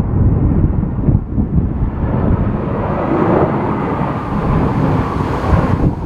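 Airbus A320 airliner's jet engines on landing approach, growing louder from about two seconds in as it passes close and breaking off at the end, under a steady gusting rumble of strong wind buffeting the microphone.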